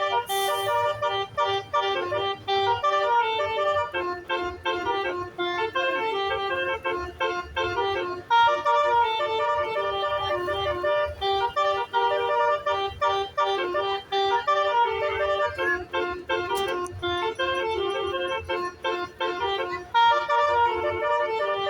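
Basuri multi-tone musical horn on a tour bus playing a continuous melody, one note quickly after another.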